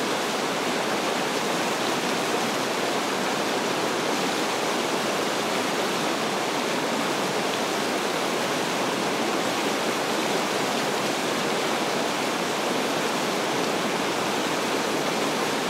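River water rushing and breaking over rocks: a steady, loud roar of noise with no pauses or changes.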